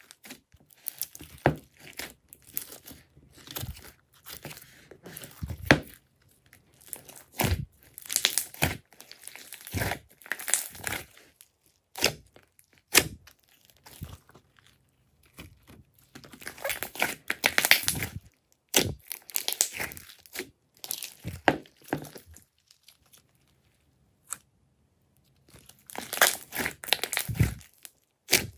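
Glossy slime being stretched, folded and squeezed by hand, giving sticky crackling, tearing and popping sounds in irregular bursts. The bursts break off for two short quiet spells, about halfway through and again about three-quarters of the way through.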